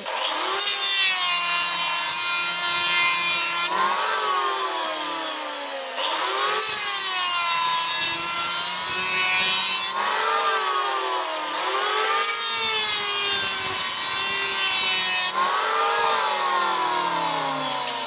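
Electric hand planer cutting a bundle of narrow wooden strips in repeated passes. Its motor whine dips in pitch as the blades bite into the wood and rises again between strokes, several times over.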